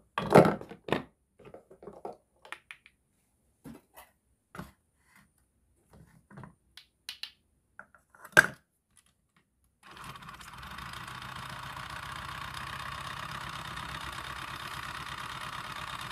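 Wooden play-food tomato being cut with a wooden toy knife and the pieces handled against plastic: scattered knocks and clicks. About ten seconds in, a battery toy hand mixer starts and runs with a steady motor whir.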